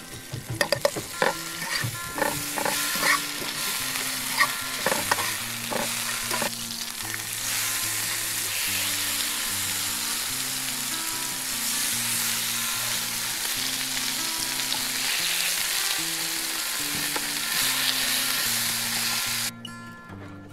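Pine mushrooms frying in butter in a hot pan, sizzling, with a utensil clicking and scraping against the pan during the first several seconds. About seven seconds in, with duck breasts in the pan, the sizzle turns fuller and steadier, then stops abruptly near the end.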